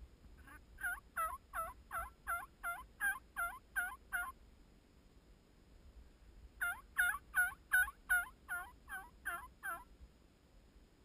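Turkey yelping: two runs of evenly spaced, rising-and-falling yelp notes at about three a second, the first about eleven notes long, then after a two-second pause about nine more.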